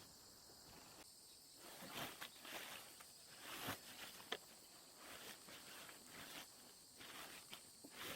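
Quiet outdoor ambience: a faint, steady high chirring of insects, with scattered soft rustles and footstep-like clicks.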